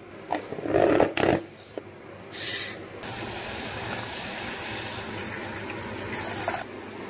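A few clinks and knocks of a steel lid and utensils in the first second or so, then milk poured in a steady stream into tea boiling in an aluminium pan, an even splashing hiss that runs on.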